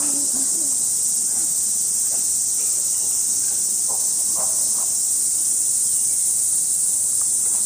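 Steady, high-pitched hiss of a summer cicada chorus, unbroken throughout. A few faint, brief sounds come and go about four seconds in.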